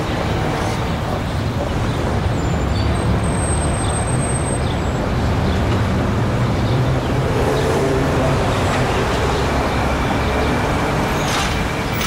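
City street traffic ambience: a steady wash of car and bus engines and tyre noise. About three seconds in, a brief thin high squeal cuts through.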